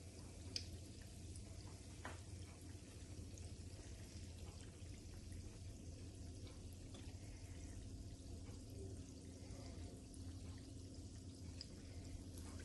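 Faint sizzling and crackling of a battered corn dog frying in a pan of hot oil, over a low steady hum.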